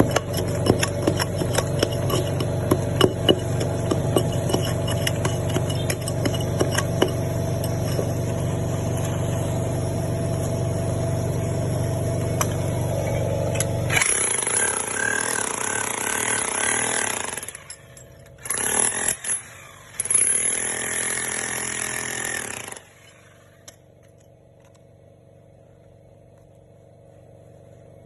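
Loud, steady machine noise: a low rumble with many sharp clicks, turning brighter and choppier about halfway, with a couple of short breaks. It stops about 23 seconds in, leaving a faint steady hum.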